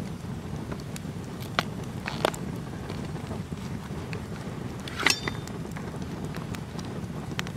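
Campfire burning with a steady crackle and hiss, over which a leather knife sheath is handled: a few sharp clicks, the loudest about five seconds in with a brief metallic ring.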